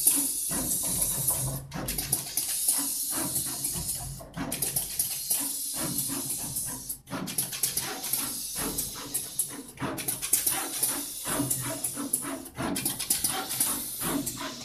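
SMT460 pick-and-place machine running: rapid clicking from the moving placement head over a steady high hiss, with low motor hum underneath. The hiss drops out briefly about every two and a half to three seconds, in a regular cycle.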